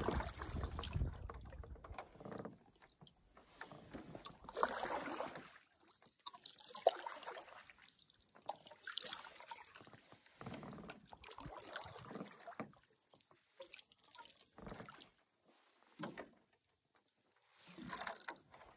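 Faint, irregular water sounds: small splashes, trickles and drips coming and going with quiet gaps between them.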